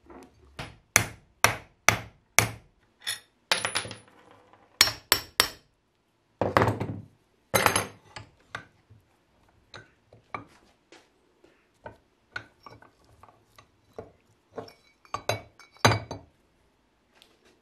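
Sharp metal knocks and clanks from handling a rusty 1999 Honda Civic brake caliper and its piston on a workbench and in a bench vise, several in quick succession at first and then more scattered. A longer scraping sound comes about six to seven seconds in.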